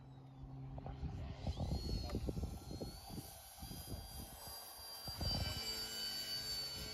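Motor and propeller of a Multiplex Tommy Jr. radio-controlled model biplane whining as it flies past. The pitch rises about a second and a half in, holds high, and starts to fall near the end. Wind buffets the microphone throughout.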